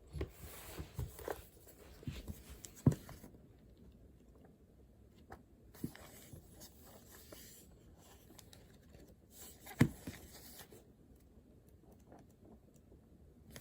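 Desk handling sounds: paper rustling in three short spells, small ticks, and two sharp knocks about three and ten seconds in.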